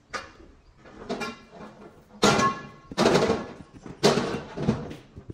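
Marble floor slab being worked into place on a sand-cement mortar bed: a series of gritty scrapes about a second apart as the slab is shifted and pressed down, the loudest a little over two seconds in.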